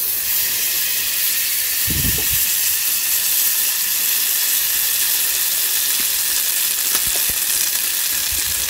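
A block of butter sizzling as it melts in a hot stainless steel pot: a steady hiss, with one short low thump about two seconds in.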